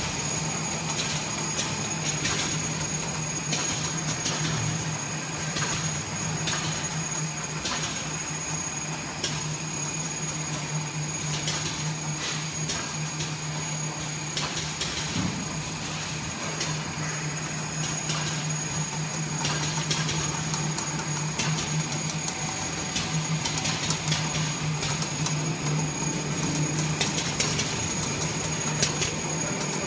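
TPU membrane fabric laminating machine running: a steady motor hum with a thin high whine over it, and frequent irregular clicks and ticks from the rollers and mechanism.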